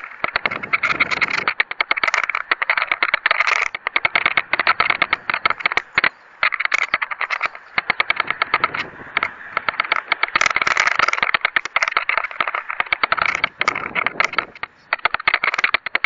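Air rushing over a model rocket's onboard camera as the rocket falls back toward the ground, heard as a dense, uneven crackle of rapid clicks and rattles, with brief lulls.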